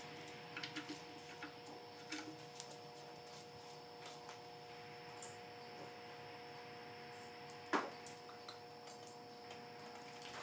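Scattered light clicks and taps of hand tools and wires being handled in a truck's engine bay, with one sharper snap about three-quarters of the way through, over a steady electrical hum.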